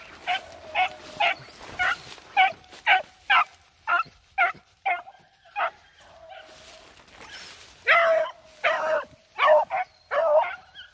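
Beagle baying while running a swamp rabbit's scent trail: short barks about two a second, a brief pause around the middle, then longer, louder bays near the end.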